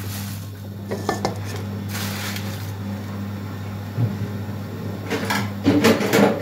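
Kitchen clatter of dishes and cutlery being handled over a steady low hum: a few clicks, a knock about four seconds in, and a burst of clinking near the end.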